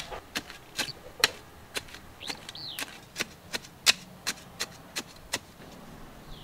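Metal hand trowel digging into dry, clumpy soil: a run of sharp, irregular scrapes and clicks, two or three a second, that stop about five seconds in. A bird chirps briefly in the middle.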